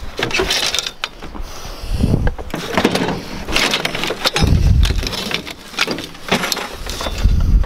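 Scrap metal clanking, knocking and scraping as pieces are shifted and dragged out of a snow-covered pickup bed, with several low thumps.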